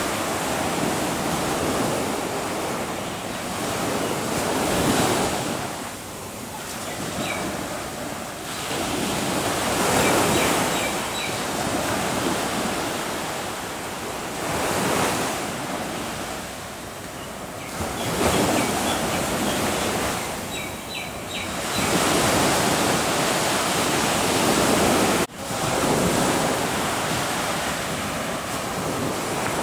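Surf on a sandy beach: waves breaking and washing up, swelling and fading every few seconds. Faint short high chirps come twice.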